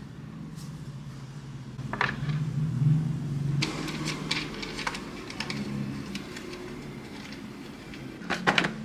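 Monitor stand parts being handled and fitted together, the metal base plate screwed onto the stand's pole. There is a knock about two seconds in, a run of small clicks and rattles a little after, and two sharp clicks near the end, over a steady low hum.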